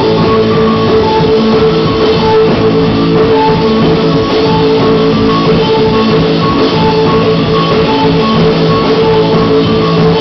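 Live band playing loud instrumental rock: electric guitar, drum kit and keyboard together, a steady held note running under a pattern of short repeating higher notes.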